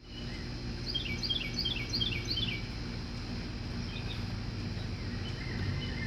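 A songbird singing a phrase of about half a dozen quick, high, descending chirps, followed by a few fainter chirps, over a steady low hum.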